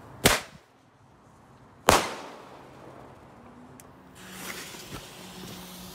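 Earthquake shot tube firework going off: two sharp bangs about a second and a half apart, the second the louder and ringing out longer.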